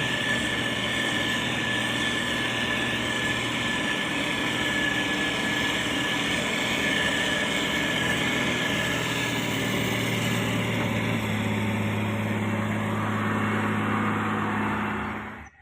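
Heavy construction machine's diesel engine running steadily, with a steady high whine over it. The sound cuts off abruptly at the very end.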